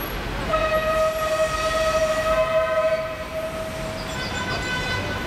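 A modern articulated tram passes. A steady high tone with overtones starts about half a second in and is held for about three and a half seconds over the rumble of the tram running.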